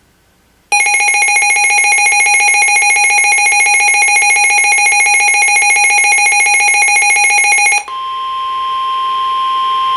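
Weather radio receiver sounding its alert: a loud, harsh, rapidly pulsing alarm for about seven seconds, then the NOAA Weather Radio 1050 Hz warning alarm tone, a single steady tone, that marks an incoming warning broadcast.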